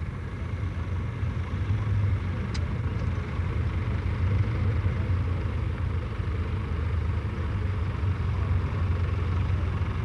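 Tractor engine running steadily with a low rumble while the tractor pulls a mounted plough through the soil.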